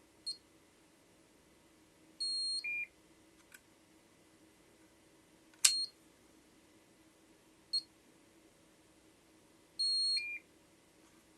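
Metrix MX 407 megohmmeter beeping. There are short single high beeps near the start and again later, and twice a longer high beep is followed at once by a short lower one. A sharp click about halfway through is the loudest sound.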